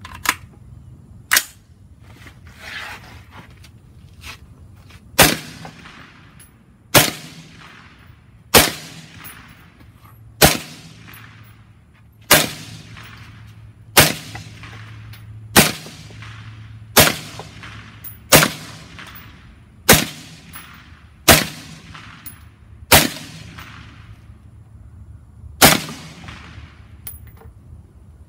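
LWRCI Individual Carbine Enhanced in 5.56 with a 14.7-inch barrel, fired through a SilencerCo Saker 556 suppressor with its gas system set to suppressed. About thirteen single semi-automatic shots, one every one and a half to two seconds, each a sharp crack with a short ringing tail. Two smaller sharp clacks come in the first second and a half.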